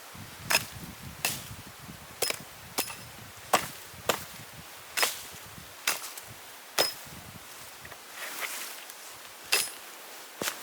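A blade chopping into wood: about a dozen sharp strikes, irregularly spaced roughly a second apart, some with a short metallic ring.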